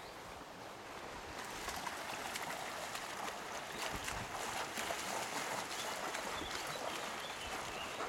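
Shallow stony stream flowing, a steady rushing, rippling noise that grows louder about a second and a half in as the water comes close.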